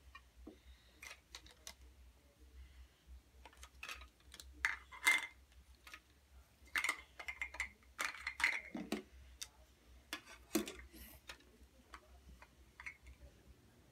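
Irregular clicks, clacks and light clinks of plastic toy cookware, utensils and play food being handled, with a cluster of louder clatters in the middle.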